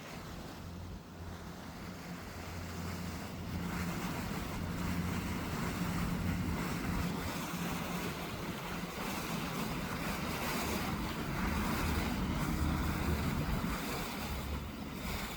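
Boat engine running with a steady low hum, under a wash of water and wind noise on the microphone.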